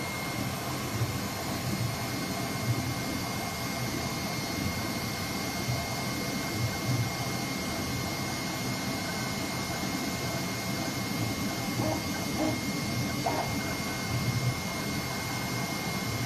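A digital flatbed cutting machine is running as its head cuts sticker sheets. It makes a steady whirring hum with a faint, steady high whine, and there are small uneven rises in loudness as the head moves.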